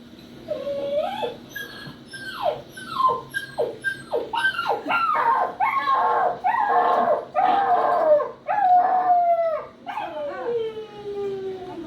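Puppy crying: a run of high, falling whimpers and yelps, crowded together mid-way, ending in one long falling whine.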